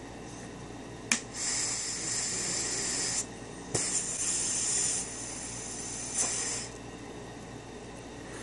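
A hit being drawn through a homemade steamroller pipe: three sharp clicks, about one, four and six seconds in, typical of a lighter, each followed by a high hiss lasting one to two seconds.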